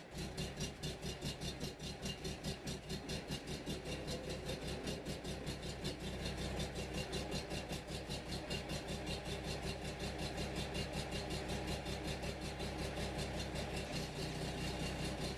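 Waldon 4500 loader's engine idling steadily with an even pulsing beat, freshly restarted and reprimed.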